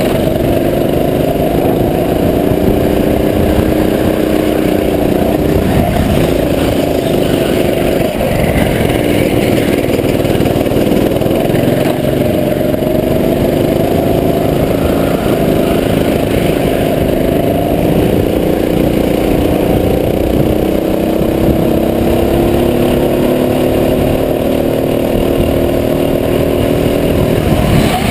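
Go-kart engine running hard, heard close up from the kart itself: its pitch climbs slowly and drops back several times as the kart laps the track.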